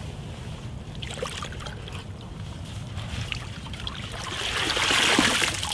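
Water sloshing and splashing at the water's edge over a steady low rumble, swelling into a louder rush of splashing about four and a half seconds in.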